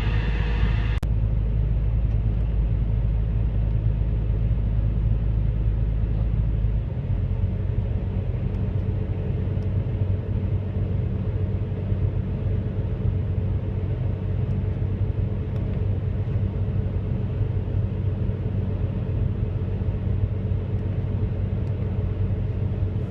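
Diesel engine of a John Deere 850D LC excavator running steadily with a deep rumble. A higher-pitched sound cuts out about a second in, and the deepest rumble drops about seven seconds in.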